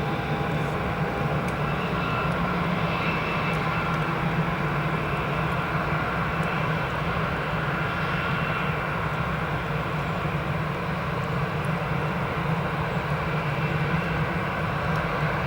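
Airbus A319 jet engines running, a steady, unbroken rumble.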